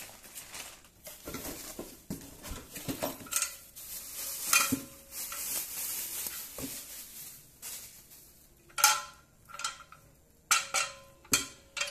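Loose gaming-chair parts, plastic casters and metal hardware, knocking and clinking together as they are handled, with plastic wrapping crinkling. A quick run of sharp, ringing clinks comes near the end.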